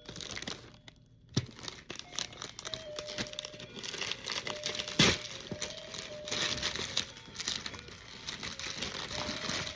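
Paper crinkling and crackling as it is handled while presents are unwrapped, with a sharp crackle about five seconds in.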